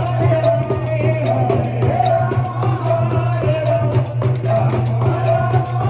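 Devotional kirtan music: hand cymbals ring in a quick steady beat, about four to five strokes a second, over a drum and a wavering melody line.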